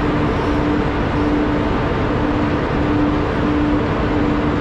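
Container gantry crane handling a container overhead: a steady loud mechanical rush, with a low tone that repeats about every two-thirds of a second.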